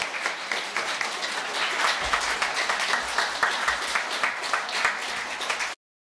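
Audience applauding, with dense hand clapping that cuts off suddenly near the end.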